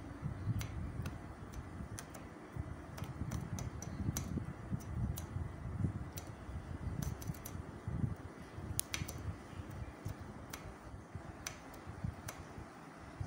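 Handling noise as beaded organza fabric is moved and turned by hand: an uneven low rumble with scattered small sharp clicks at irregular times.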